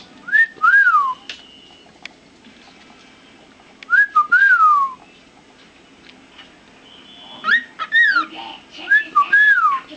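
A cockatiel whistling short phrases of rising-then-falling notes in four bursts, with pauses between.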